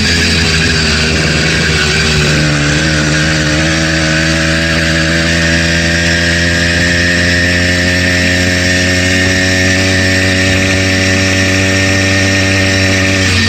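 Bike Berry 80cc two-stroke bicycle engine kit running under way. Its pitch dips about two seconds in, then climbs slowly as it speeds up. The engine is brand new, and the owner takes the knock in it for rod knock.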